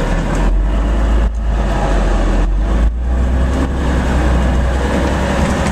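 Garbage truck's heavy diesel engine running under load with a strong low rumble, heard from inside the cab as the truck drives into deep snow drifts.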